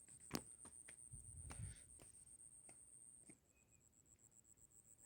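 Near silence with a few faint, scattered clicks in the first few seconds and a thin, steady high-pitched whine.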